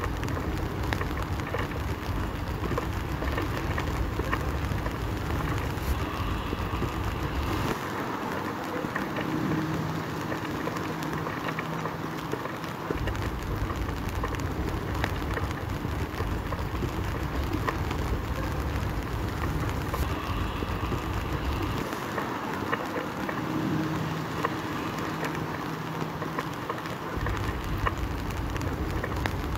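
Steady rain hiss with wind buffeting the microphone in a low rumble that eases off twice for a few seconds.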